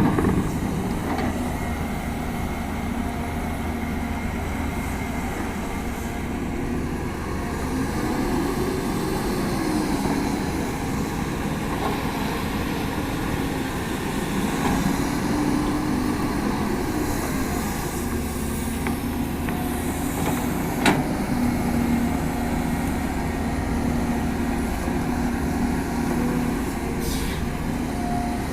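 CAT 320D excavator's diesel engine running under working load, its pitch rising and falling as the hydraulics dig and swing. There is a single sharp knock about two-thirds of the way through.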